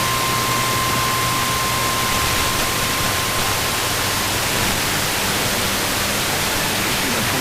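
Loud, steady radio static hiss from a weather radio receiver, with a steady high tone underneath that fades out about four seconds in.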